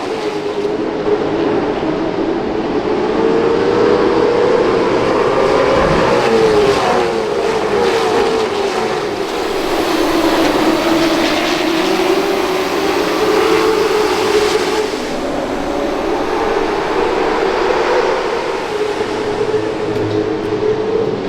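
A field of short-track race cars running laps together, their engines rising in pitch as they accelerate and falling as they lift, in a slow swell and fade every several seconds.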